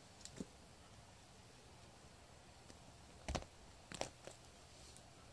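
Kitten playing with a clothespin: a few soft knocks and taps of paws and body on the floor. Two light taps come near the start, a louder thump about three seconds in, and two more just after it.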